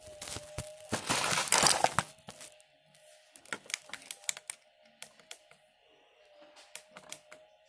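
Plastic Lego bricks being handled right at the microphone: a loud burst of rubbing and rustling about a second in, then a run of light clicks and taps, over a faint steady hum.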